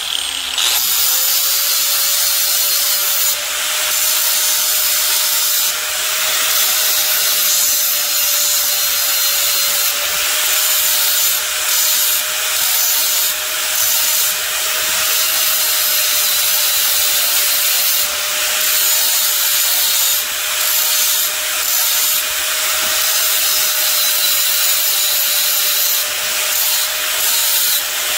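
Electric 4.5-inch angle grinder with a diamond wheel spinning up in the first second, then running with a steady motor whine. The wheel grinds a stump grinder tooth clamped in a vise, making a harsh grinding hiss that flares now and then as the wheel bites.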